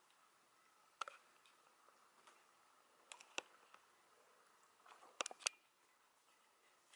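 A cat grooming itself: faint clicking licks of its tongue in three short groups, about a second in, around three seconds and just after five seconds.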